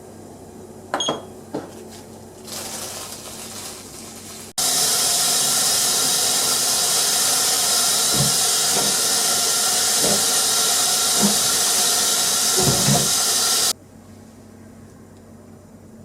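Tap water running hard into a kitchen sink for about nine seconds. It starts and stops abruptly, with a few soft knocks underneath. Before it, a couple of light clicks and a fainter rush.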